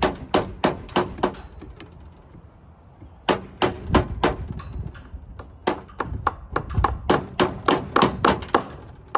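Claw hammer driving fence staples over a cattle panel's wire into a wooden frame: runs of sharp strikes, about three a second, with short pauses about two seconds in and again near five seconds.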